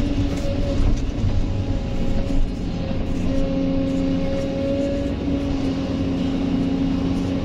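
Kobelco SK200 excavator's diesel engine and hydraulic pump working under load, heard from inside the cab: a steady low rumble with a whine that strengthens from about three seconds in as the bucket digs into the soil.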